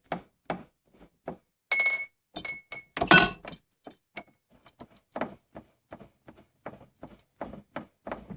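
Antique hand-cranked, self-feeding drill press being cranked through metal, clicking steadily about two or three times a second. A couple of ringing metallic clinks come about two seconds in, and a louder clank follows a second later.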